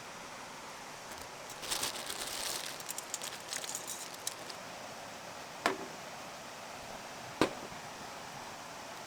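A flurry of light clicks and rustling for about three seconds, then two sharp single knocks a couple of seconds apart, over a steady hiss.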